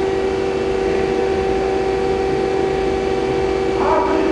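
A 2003 Takamaz CNC turning centre running under power, with its sub spindle being rotated under C-axis control. It gives a steady, even hum with a few held tones, which shift to a higher, wavering whine near the end.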